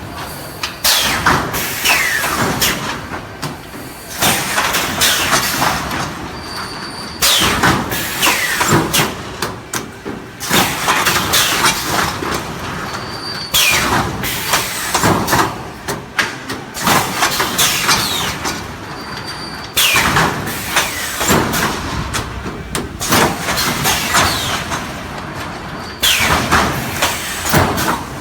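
3D sandwich-panel wire welding machine running through its automatic work cycle, repeating about every six seconds. Each cycle starts suddenly and loudly, then clicks and clatters with short falling squeals before easing off.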